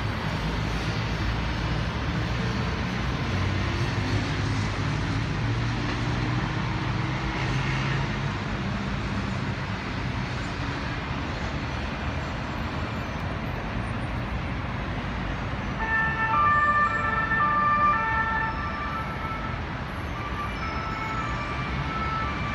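Steady rumble of jammed city traffic, with a police car's two-tone siren alternating between two pitches coming in about two-thirds of the way through, loudest for a couple of seconds and then carrying on more faintly.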